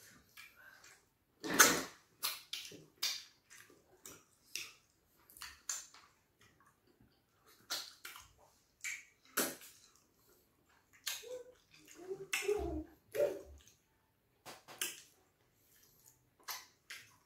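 Close-up eating sounds of fufu and ogbono (draw) soup eaten by hand: irregular short wet smacks and clicks of mouths and fingers, the loudest about a second and a half in.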